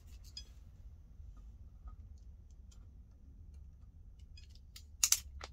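Faint scattered clicks of handling a wire and tool over a low hum, then about five seconds in a couple of sharp clicks from a ratcheting ferrule crimping tool as it is squeezed down on a wire ferrule.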